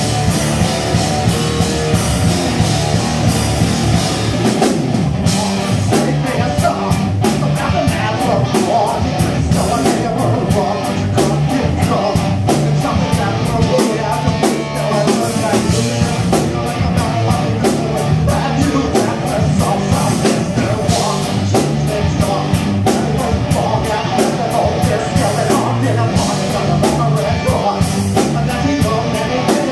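A live rock band playing loud: electric guitar over a drum kit keeping a fast, steady beat with cymbals.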